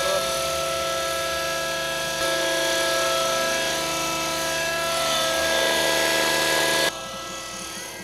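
A radio-controlled model helicopter's small combustion engine runs steadily at hover, with a high whine from the rotor and drivetrain. It cuts off abruptly near the end.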